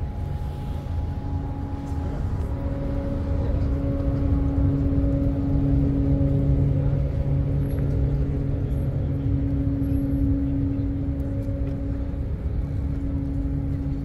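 A motor vehicle engine running steadily at idle: an even, low hum that holds one pitch, growing a little louder in the middle.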